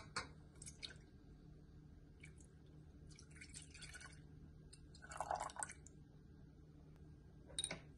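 Milk poured into an empty stainless steel saucepan: faint liquid splashing in two short stretches, the second louder, with a few light clicks near the start and near the end.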